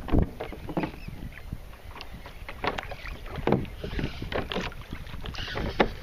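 Choppy water slapping and knocking against a plastic sit-on-top kayak hull in irregular splashes, with wind rumbling on the microphone.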